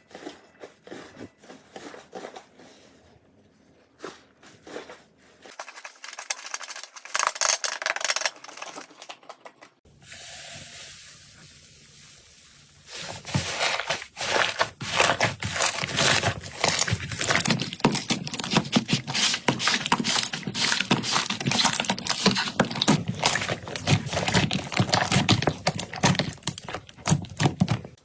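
Slime being squeezed, stretched and pressed by hand, making dense sticky crackling, popping and squishing. It is sparse and quieter at first, then after a couple of abrupt changes becomes loud, rapid crackling.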